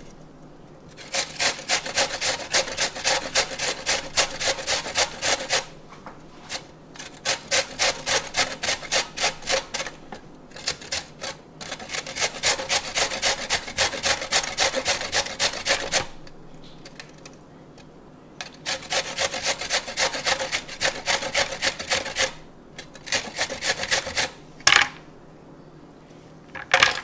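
A carrot being grated on a stainless-steel box grater: fast rasping strokes, about four a second, in several runs broken by short pauses. Two louder knocks near the end.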